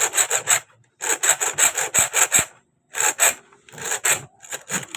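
A hand-held hacksaw blade sawing through the steel screw of a broken sewing-machine needle clamp to free it from the needle bar. Quick back-and-forth strokes, about five or six a second, come in short runs with brief pauses between them.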